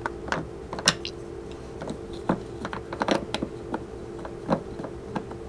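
Irregular light clicks and taps of a metal folding knife being handled, about a dozen, unevenly spaced, over a steady low hum.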